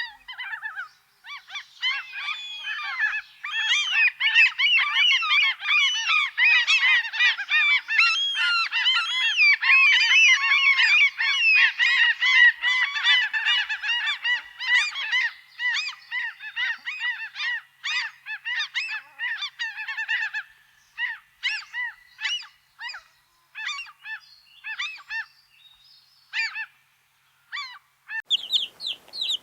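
A flock of geese honking, many short calls overlapping in a dense chorus that thins to scattered single honks after about 20 seconds.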